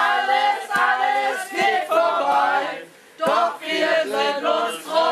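A group of people singing together in short sung phrases, with a brief pause about three seconds in.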